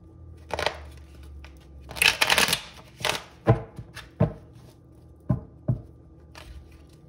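Tarot cards being handled on a table: a short rustling flurry about two seconds in, and a series of separate sharp taps and knocks as the cards or the deck are set down.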